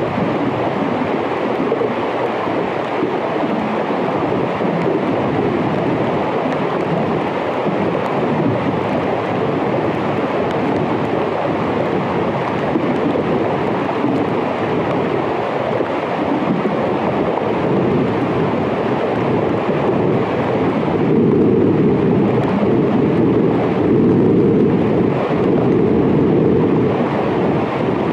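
Underwater hydrophone recording of melting Arctic glacier ice: a dense, steady rushing noise that grows louder and deeper about twenty seconds in.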